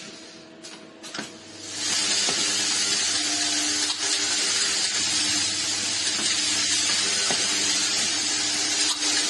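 Workshop machinery: a few clicks, then about two seconds in a loud steady hiss with a low hum sets in and keeps going.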